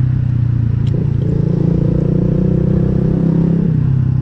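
Motorcycle engine running at a steady cruise under the rider, with road and wind noise. The engine note steps up about a second in and drops back near the end.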